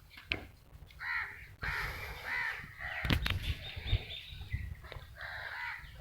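Crows cawing several times in short harsh calls, with a few sharp knocks in between.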